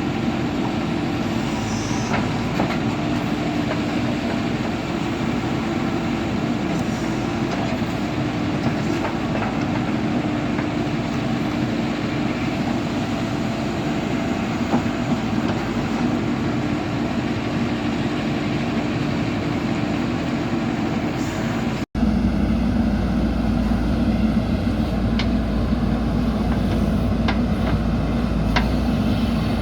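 JCB earthmoving machine's diesel engine running steadily under work. About two thirds of the way through the sound cuts abruptly to another stretch of engine running, with a heavier low rumble and a few faint knocks.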